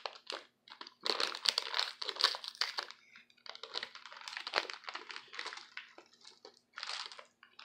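Plastic M&M's candy packet crinkling in irregular rustling bursts as it is handled and opened by hand.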